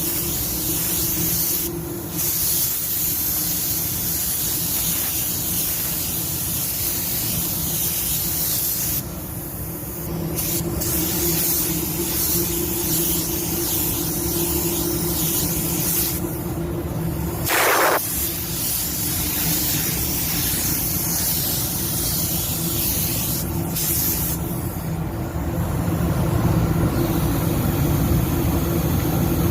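Air spray gun hissing as automotive paint is sprayed in passes, the hiss stopping briefly several times between passes, over a steady low hum. A short, sharp sound stands out a little past halfway.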